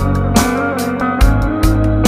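Music with a steady beat, sharp hits about every 0.4 seconds over a low bass line and plucked-string notes.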